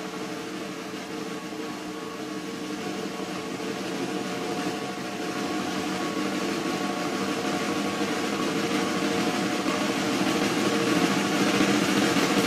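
A rock band holds a sustained, droning chord of steady notes under a hiss-like wash that swells steadily louder, building toward a snare drum roll.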